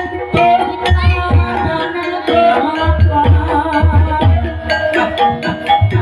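Javanese gamelan music: struck metallophone tones in a running melody over deep kendang hand-drum strokes.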